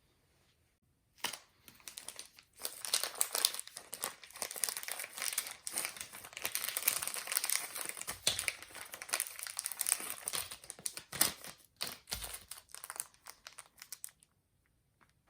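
Plastic packaging crinkling and rustling as it is handled. It starts about a second in with a sharp crackle and keeps up in irregular crackles and clicks until shortly before the end.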